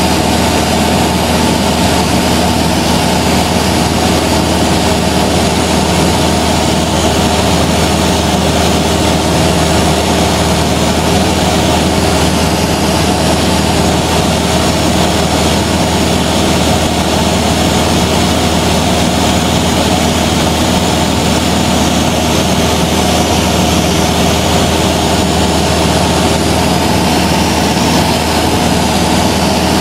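Cessna 172's piston engine and propeller droning steadily in cruise, heard from inside the cabin, with a constant pitch and loud wind and airframe noise.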